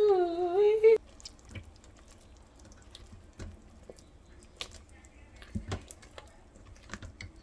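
A short hummed note from a person, wavering in pitch and breaking off about a second in. Then sparse light clicks, taps and drips from cooking utensils at the pot.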